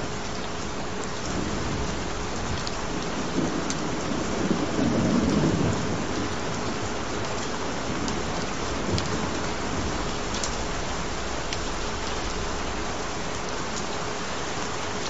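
Steady rain, with a low roll of thunder that swells a few seconds in and fades away.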